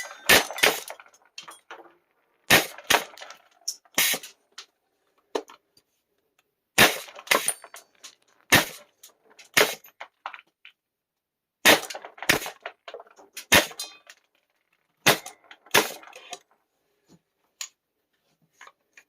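Airsoft Innovations FLAK 10 gas-powered airsoft shotgun firing about a dozen sharp shots at irregular intervals, with smaller cracks and rattles from the pellet spread striking the target between them.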